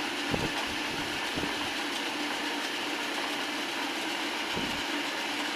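1917 Hendey engine lathe running steadily under its belt-driven electric motor, with the half nuts engaged on the lead screw and the carriage power-feeding through a threading pass. A constant hum runs through the gear and belt noise, with a few faint low knocks.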